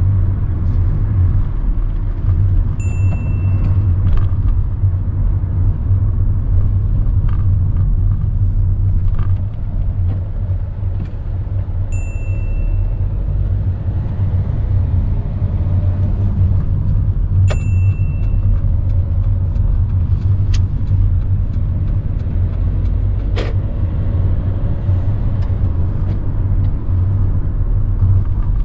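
Steady low rumble of a car's engine and tyres heard from inside the cabin while driving. Three short high-pitched beeps sound over it, and there is a single sharp click near the end.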